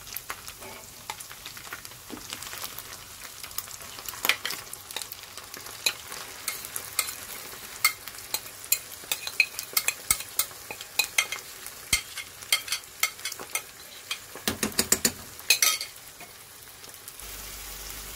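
Yogurt-marinated chicken frying in hot oil in a pan: a steady sizzle with many sharp crackles and spatters, while a wooden spatula stirs it. A cluster of louder spatters comes near the end.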